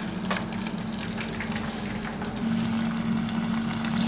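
Beer-battered seven-gill shark pieces deep-frying in a saucepan of oil: a steady sizzling hiss with small crackles, over a low steady hum.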